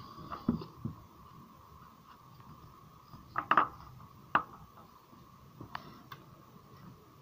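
A new crankshaft timing-belt gear being worked onto the crankshaft nose by hand, with scattered light metal-on-metal clinks and knocks; the loudest come in a quick cluster a little over three seconds in.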